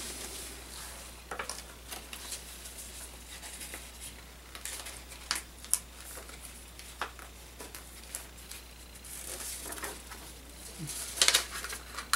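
Paper envelopes being opened by hand: rustling and tearing paper with small clicks of handling, and a louder rustle near the end.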